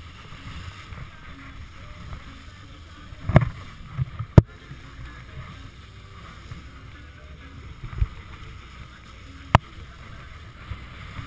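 Low, steady rumble of the tow car driving slowly on a gravel road, broken by three sharp knocks: two close together about four seconds in, the second the loudest, and one more near the end.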